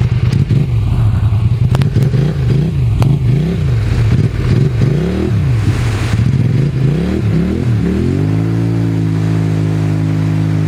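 Polaris 850 ATV's twin-cylinder engine revving up and down about once a second as it churns through swamp water, then climbing and holding at high, steady revs near the end.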